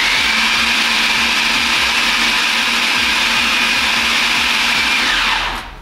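Food processor motor running at full speed, puréeing chopped raw chicken with egg and seasoning into a smooth paste, with a steady whine. Near the end it switches off and spins down, its pitch falling.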